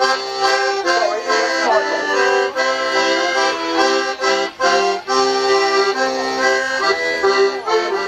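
Folk dance tune for maypole dancing, a lively melody in quick, held notes.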